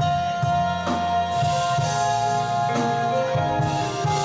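Band playing the instrumental close of a slow song: drum kit and bass under a long held note, with a few drum hits.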